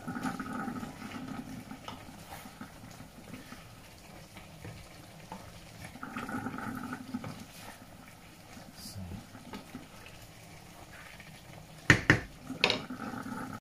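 Wooden spatula stirring chicken and potato chunks through simmering curry sauce in a frying pan, in two spells of scraping and churning. Two sharp knocks near the end.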